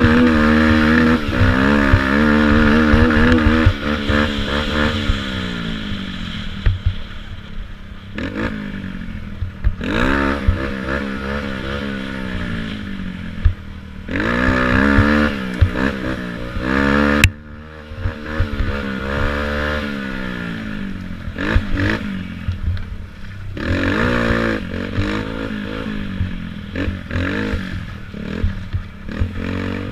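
Youth ATV (quad) engine revving up and falling back again and again as it is ridden over a rough dirt trail, with scattered knocks and rattles from the machine.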